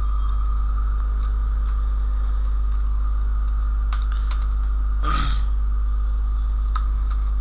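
Computer keyboard keys clicking a few times as a line of code is typed, over a steady low hum, with a brief falling swish about five seconds in.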